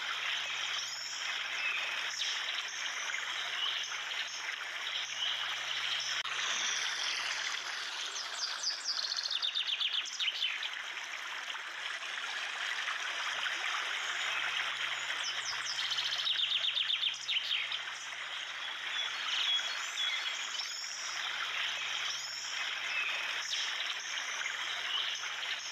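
Nature ambience of steadily rushing water with birds chirping throughout, and two fast rattling trills, one about eight seconds in and one about sixteen seconds in.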